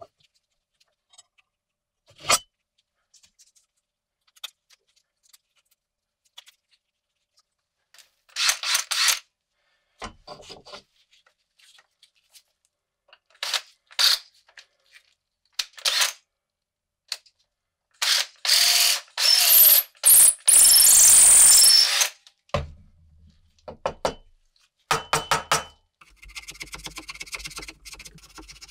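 Makita cordless drill boring into a wooden tool handle in several short bursts, the longest running about four seconds in the second half, with knocks and clicks of tools being handled between them. A rasping scratch starts near the end.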